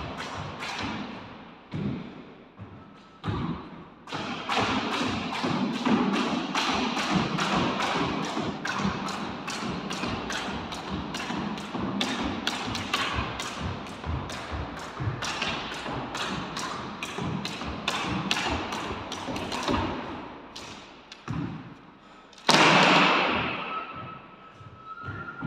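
Rapid footfalls of court shoes on a wooden squash court floor, quick light strikes several per second during footwork drills, with a brief lull and then a louder scuff near the end.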